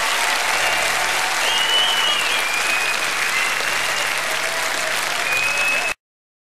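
Concert audience applauding and cheering, with a few whistles, after a rock song; the recording cuts off suddenly near the end.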